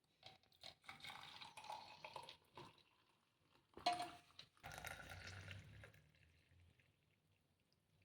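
Faint clinks of a metal pot and strainer with liquid pouring and dripping as hot kashaya (herbal decoction) is strained into cups. There is one sharper clink about four seconds in.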